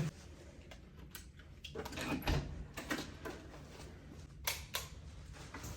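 A few scattered short clicks and knocks, two close together a little after the middle, over faint low background noise.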